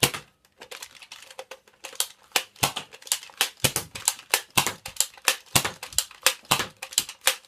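Repeated sharp plastic clicks and rattles from a Nerf toy revolver being handled and taken apart, about two to three clicks a second, unevenly spaced.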